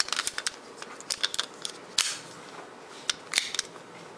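Sharp clicks and light knocks from a Ruger LCP .380 pistol being turned over in the hand, in small clusters, the loudest about two seconds in.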